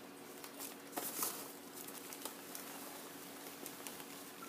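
Foam packing peanuts rustling and clicking as a hand digs through them in a styrofoam cooler. There are irregular small clicks throughout, a sharper one about a second in, over a faint steady hum.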